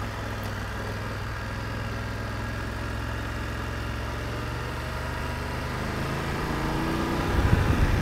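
BMW F750GS parallel-twin engine running at low, steady revs while riding, heard from a camera mounted on the motorcycle. About six seconds in the engine note rises as the bike accelerates, and the sound grows louder and rougher near the end.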